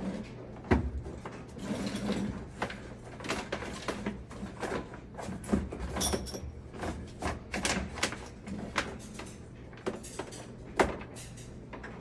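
Irregular knocks, bumps and scraping of someone moving about and handling materials in a crawl space, with a sharp knock a little under a second in and another near the end, over a faint steady low hum.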